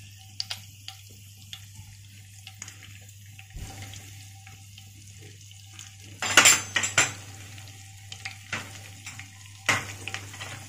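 Tempering spices (mustard seeds, cumin, fenugreek and curry leaves) frying in hot oil in a nonstick kadai. A faint sizzle is broken by scattered sharp pops and crackles as the seeds start to splutter, with a louder burst of crackling about six seconds in and another near the end.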